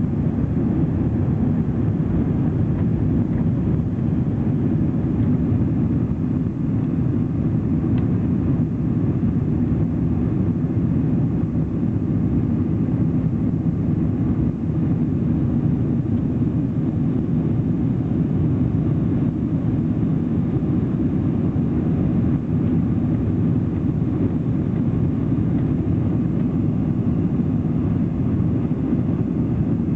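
Steady low roar of a Boeing 747's engines and rushing air, heard inside the passenger cabin during the climb after take-off.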